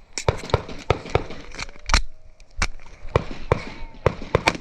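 Airsoft pistol firing an irregular string of about a dozen sharp shots, a few of them in quick pairs near the end.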